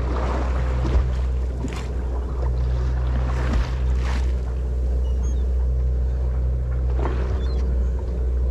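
A sportfishing boat's engine humming steadily while the boat drifts, with water sloshing and splashing against the hull every couple of seconds.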